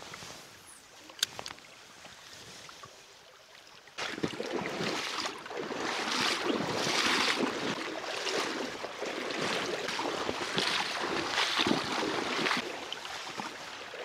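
Quiet trickle of a shallow stream, then from about four seconds in the splashing of wader-clad feet stepping through shallow water, roughly one step a second.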